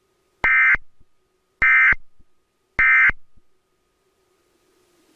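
Emergency Alert System end-of-message (EOM) data tones: three short, identical bursts of SAME digital signalling, each about a third of a second long and a little over a second apart, marking the end of the test alert.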